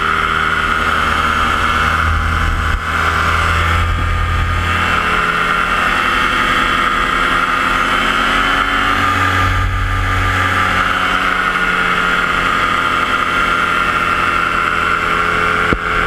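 Yamaha JR120 paramotor engine running steadily in flight, a constant droning whine with no change in throttle.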